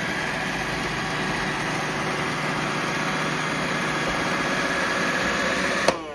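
iRobot Roomba 675 robot vacuum running, its vacuum motor and brushes giving a steady whir with a faint high whine. Near the end it shuts off with a click and the motor spins down as the Roomba reaches its charging dock.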